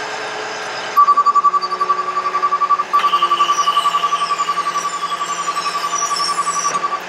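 Outrigger motion alarm on an Altec TA45M bucket truck beeping rapidly as the outriggers are lowered, with a short break about two seconds after it starts. A low steady hum from the PTO-driven hydraulics runs underneath.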